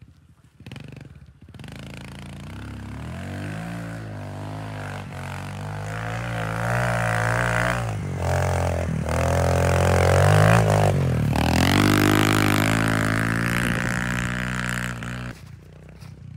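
Kawasaki KLX pit bike's single-cylinder four-stroke engine revving hard as the bike slides through snow. It grows louder to a peak about ten seconds in, with brief dips in revs, then drops away sharply near the end.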